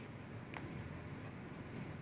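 Ballpoint pen writing on notebook paper, faint against a low steady background, with one small click about half a second in.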